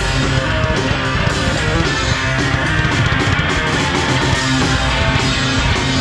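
Rock music led by guitar, with a steady beat.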